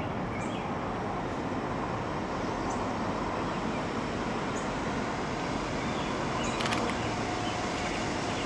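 Distant CSX welded-rail freight train approaching: a steady rumble from its diesel locomotives that slowly grows louder. A brief click comes about two-thirds through, followed by a faint steady tone.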